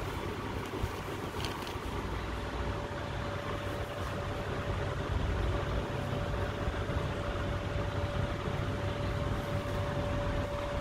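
Steady low mechanical rumble, with a steady single-pitched whine that comes in about three seconds in and holds.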